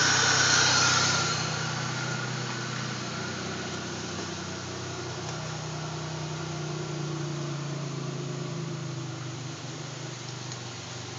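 A 2000 Pontiac Grand Prix's V6 engine running after a start-up with the valve covers refitted. A louder, hissy sound fades about a second in and the engine settles to a steady idle, which the owner judges to sound good, the earlier bad engine noise gone.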